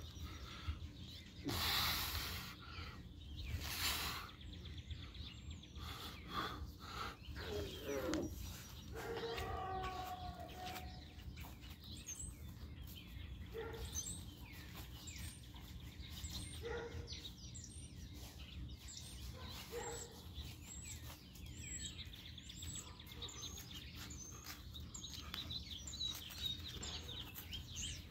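Songbirds chirping and singing, many short gliding calls, over a steady low outdoor rumble. Near the start come two brief loud rushing noises.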